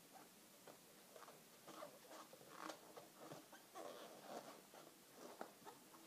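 Faint rubbing and squeaking of latex 260 modelling balloons being twisted and pressed together by hand, in short irregular scrapes.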